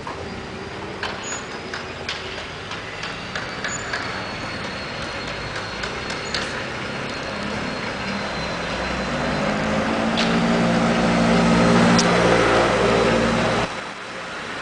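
Street traffic noise with scattered clicks and knocks; a motor vehicle's engine grows louder from about eight seconds in and stops suddenly near the end.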